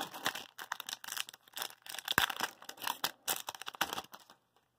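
Foil wrapper of a Topps hockey card pack being torn open and crinkled in the hands, a dense crackle that stops about four seconds in.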